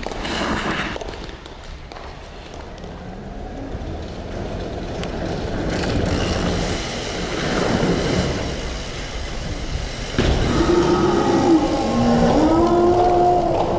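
BMX bike tyres rolling over pavement, a noise that grows louder over several seconds. About ten seconds in a louder stretch begins, with wavering, gliding tones over the rolling.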